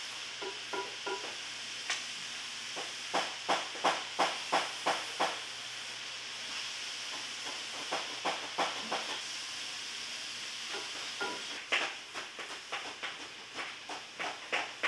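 A glue brush scrubbing adhesive onto a leather boot sole in runs of quick strokes, about three a second, over a steady hiss.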